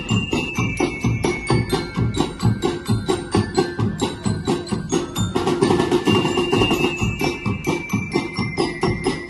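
Music with a fast, steady percussion beat and ringing, bell-like tones over it.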